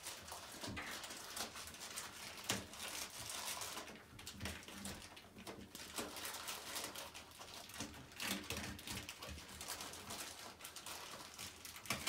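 Faint rustling and crinkling of a plastic zipper bag being handled and worked off a shower head, with scattered small clicks and knocks.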